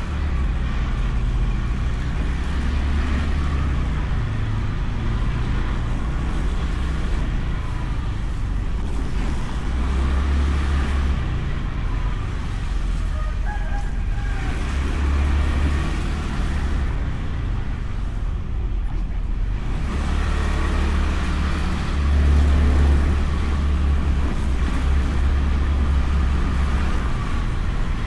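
Honda Beat scooter under way on the road: single-cylinder engine, tyre and road noise, with a heavy low wind rumble on the scooter-mounted camera's microphone that swells several times.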